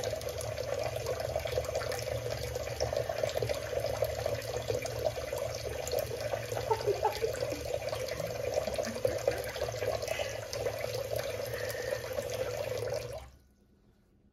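Thin stream of tap water from a kitchen faucet falling into a water-filled ceramic bowl in a stainless steel sink, a steady splashing trickle. It cuts off suddenly near the end as the tap is turned off.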